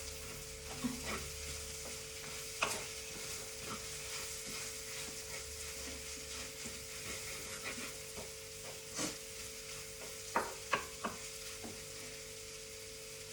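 Food sizzling steadily in a frying pan while being stirred, with a few sharp knocks of the spoon or spatula against the pan, several of them close together near the end.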